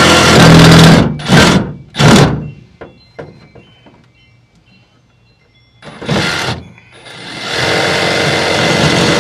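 A handheld power tool running, released about a second in, then two short trigger bursts that each spin down, a few light clicks and knocks, another short burst near six seconds, and the tool running steadily again from about seven and a half seconds on.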